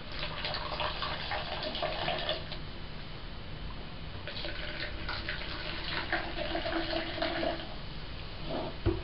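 Homemade yeast-fermented vanilla soda being poured from a plastic bottle into plastic cups, in two pours, the second starting about four seconds in.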